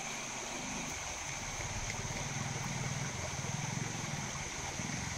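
Steady running and lapping water in a concrete hot-spring tank, with a low rumble underneath and a faint steady high whine.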